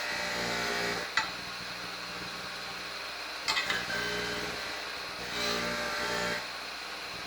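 Motor-driven wire wheel running with a steady hum, getting louder and scratchier in two stretches, at the start and about five seconds in, as rusty pliers are pressed against it to scrub off rust. Two sharp clicks, about a second in and about three and a half seconds in.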